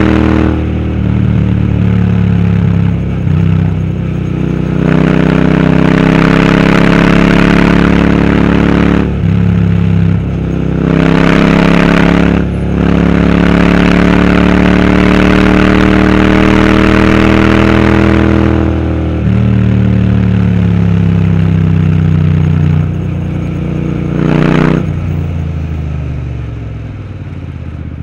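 Royal Enfield Interceptor 650's parallel-twin engine through a Powerage aftermarket exhaust, pulling under load on the road. Its note rises with engine speed and drops briefly several times as the throttle closes for gear changes, then picks up again. It eases off near the end.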